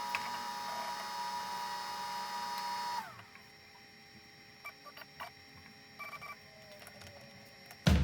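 FoxAlien 4040-XE desktop CNC router running while carving, with a steady high whine that falls in pitch and dies away about three seconds in. A few faint clicks follow, and music with drums starts right at the end.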